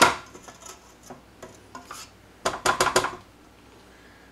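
Silicone spatula scraping and knocking against a stainless steel stand-mixer bowl in short clusters of quick strokes, the clearest about two and a half seconds in.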